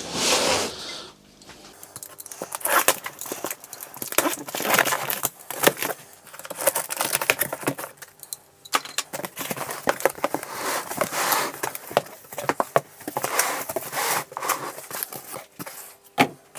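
A cardboard box being opened: a knife slitting the packing tape, tape tearing and cardboard flaps rustling and scraping, in a run of short, irregular bursts.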